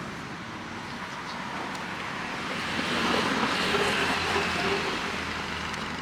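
Street traffic: a steady wash of road noise that swells for a couple of seconds around the middle as vehicles go by.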